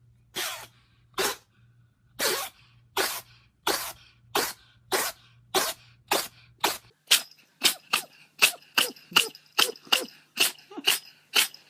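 An animal sneezing over and over in short, sharp sneezes. They come about one every two-thirds of a second at first, then quicken to about three a second from the middle on.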